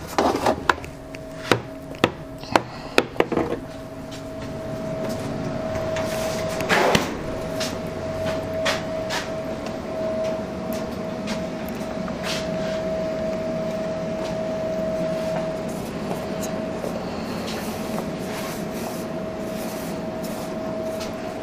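A string of sharp knocks and clatters in the first few seconds and another about seven seconds in, as things are shifted while fetching a metal oil funnel, then lighter handling noises. A steady high tone runs through it all.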